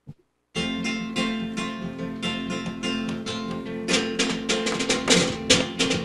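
Small acoustic guitar strummed in a lively rhythm, starting about half a second in, with drum hits joining about four seconds in: the instrumental opening of a song.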